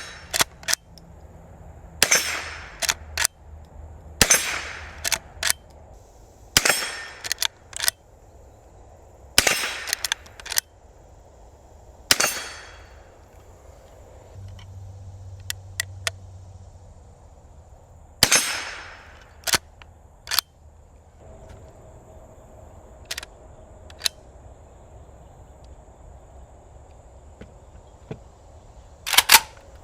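Henry Golden Boy .22 lever-action rifle fired seven times, each shot cracking sharply with a short echoing tail. Between shots, the lever being worked to cycle the next round gives a few quick metallic clicks.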